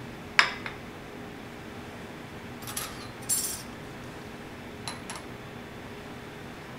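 Tableware clinking: a sharp clink about half a second in, then a few lighter clinks and short rattles of cutlery or dishes over the next few seconds, over a steady background hiss.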